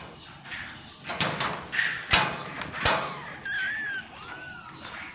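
A few sharp knocks and clatters, the loudest a little past two seconds in, followed by kittens mewing in thin, wavering high calls near the end.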